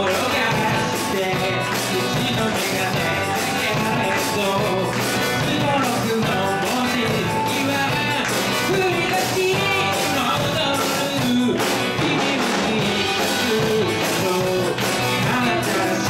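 Live band playing an upbeat rock number on drum kit and electric guitars, with a woman singing the melody.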